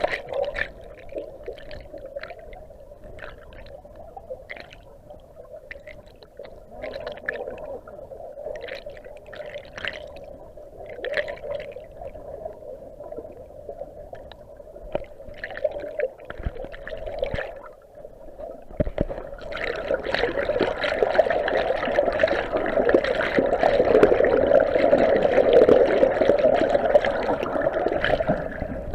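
Creek water gurgling and sloshing, with scattered small splashes; it grows louder and fuller about two-thirds of the way through.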